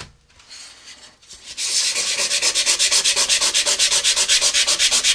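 Hand sanding a rocket's coupler tube, scuffing its outside surface so glue will bond. It starts with a little handling, then about a second and a half in becomes fast back-and-forth rubbing strokes, about eight a second.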